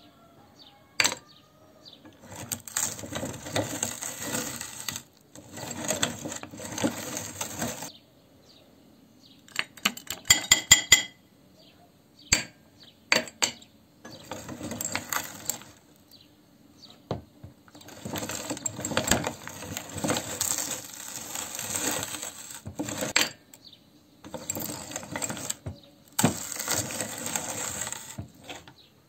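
Hard-candy lollipops being crushed in a hand-cranked cast-metal meat grinder: several long bouts of crunching and grinding, broken by pauses. About ten seconds in comes a quick run of sharp clinks of hard candy against metal.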